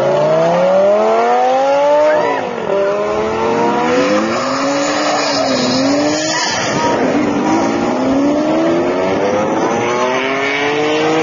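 Several supercar engines accelerating hard one after another. Each revs up in rising pitch and drops sharply at an upshift, about two seconds in and again several times after, with the cars overlapping.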